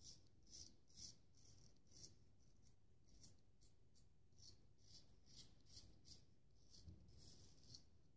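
Faint rasping of a Gold Dollar 208 half-hollow-ground carbon-steel straight razor cutting stubble through shaving lather on the neck, in short scraping strokes about two a second.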